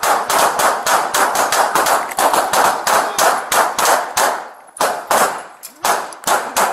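A rapid volley of gunshots, about six a second, overlapping as if from several guns, with a short break about four and a half seconds in before the firing resumes.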